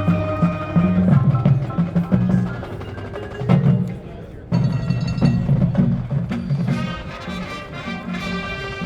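Marching band playing, led by drums and mallet percussion. The drumming thins out near the middle, comes back in loudly about halfway, and sustained pitched chords join toward the end.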